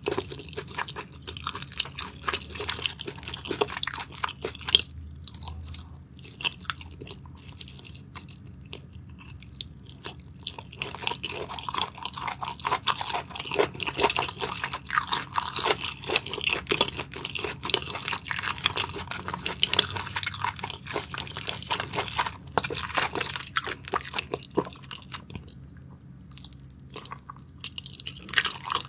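Close-miked chewing and mouth sounds of a person eating shellfish meat in spicy sauce: many small, irregular clicks and smacks, dropping to a brief lull shortly before the end.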